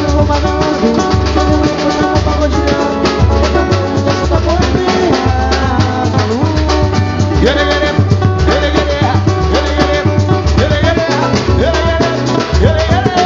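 Samba band playing pagode: hand percussion and drums over a steady pulsing bass beat, with melodic instruments on top.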